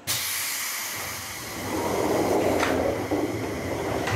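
Compressed-air hiss from a JR West 201 series train's pneumatic door engines as the doors close for departure. It starts abruptly, grows fuller about halfway through, and cuts off near the end.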